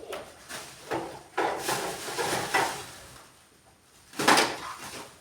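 Household handling noises: a few scraping, rustling movements, then a sharp knock or bang about four seconds in.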